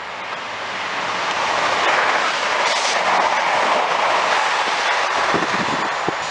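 Class 166 Turbo diesel multiple unit passing close by at speed. The rushing noise builds to a loud peak about two to four seconds in, then fades as it goes away, with a few wheel clacks over the rail joints near the end.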